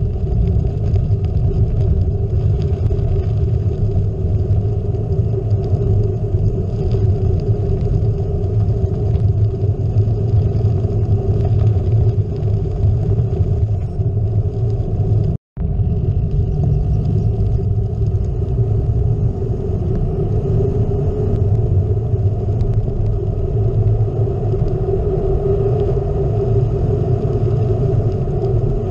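Steady low rumble of a gravel bike rolling down country roads, with wind buffeting the camera microphone and the tyres running over the surface. The sound drops out completely for an instant about halfway.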